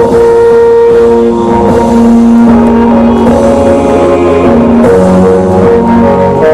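Loud soundtrack music from a light-and-sound show: held chords that change pitch every second or so.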